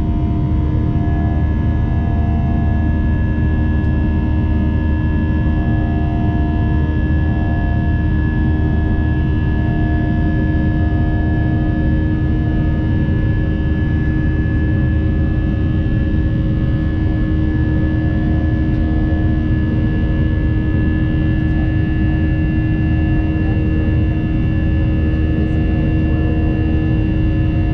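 Jet airliner's engines at climb power, heard inside the passenger cabin: a loud, steady low rumble with several steady held tones over it.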